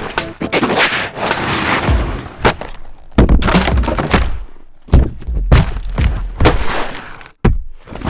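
Leather sofa being smashed apart: a string of heavy hits, thuds and breaking sounds with crunching debris. It comes as several separate takes, each cutting off abruptly before the next.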